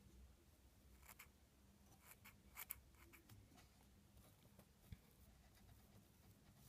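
A few faint snips of small scissors trimming ice-dubbing fibres on a fly, the loudest pair just under three seconds in and a last one about five seconds in, over near silence.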